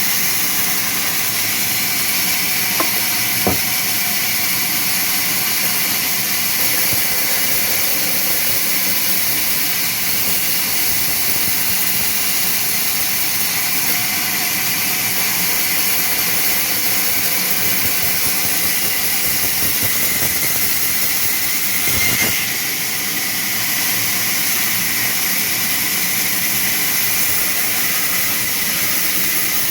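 Sawmill machinery running steadily with a loud, even hiss. Two sharp clicks come a few seconds in, and a brief knock comes about two-thirds of the way through.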